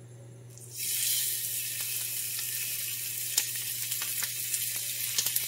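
Skin-on chicken breast laid skin side down into hot oil in a cast-iron skillet: sizzling starts suddenly just under a second in and keeps going, with scattered pops.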